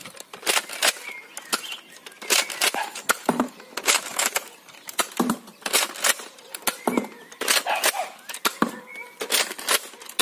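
Nerf N-Strike Elite Retaliator dart blaster being primed and fired over and over: sharp plastic clacks of the slide and shots, coming in quick clusters about once a second.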